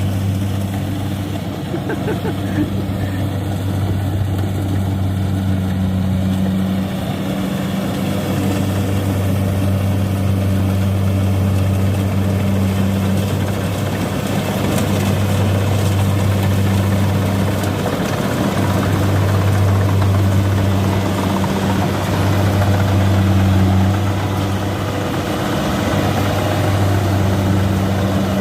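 Diesel engine of a Kubota DC-93 combine harvester running steadily under load in a rice field, a deep even hum that dips briefly a few times.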